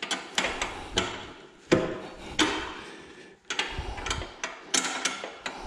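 Metal wrench on a 9/16 bolt under a zero-turn mower deck: irregular sharp clicks and knocks, a dozen or so, some with a short ring.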